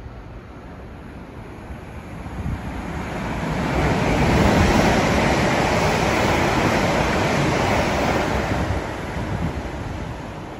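A purple East Midlands Railway passenger train passing through the station at speed on the far line: a rushing rumble of wheels on rail that swells from about two seconds in, is loudest mid-way, and dies away near the end.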